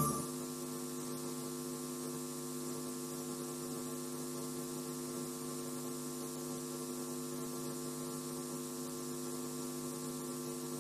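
Music cuts off right at the start, leaving a steady electrical mains hum: a low, even buzz of many stacked tones that does not change.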